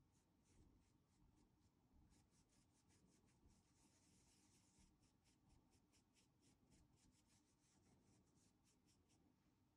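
Very faint, quick brushing: a flat paintbrush stroking paint through a stencil onto a fabric apron, about four light strokes a second.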